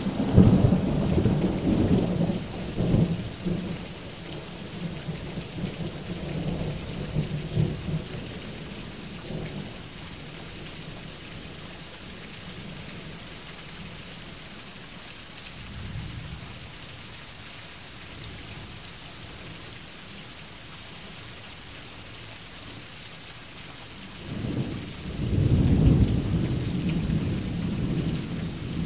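Thunderstorm: steady rain falling throughout, with a roll of thunder at the start that fades away over the first several seconds and another rumble of thunder about 25 seconds in.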